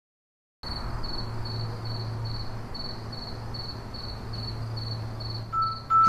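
Crickets chirping in a steady pulse, about three chirps a second, over a low steady hum, starting about half a second in after a moment of silence.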